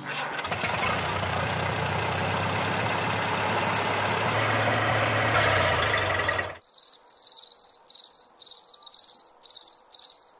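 A steady rushing noise with a low hum, swelling slightly, cuts off suddenly after about six and a half seconds. Then a field cricket chirps in an even, high-pitched rhythm, a little over two chirps a second.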